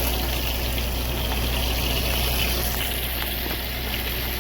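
Chopped vegetables and seasoning sizzling in hot oil in a skillet, over a steady low engine hum.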